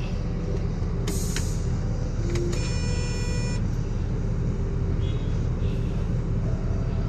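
Sinotruk Howo's Weichai WP10 diesel engine being cranked by the starter without catching, a steady low rumble. This is the cranking-no-start fault that follows its stalling while driving. A short hiss comes about a second in and a brief high whine near the middle.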